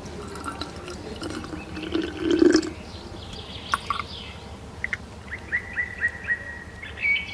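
Water poured from a small plastic cup into a small plastic jar, trickling and splashing, with a burst of gurgling about two seconds in and a quick run of short rising plinks in the second half.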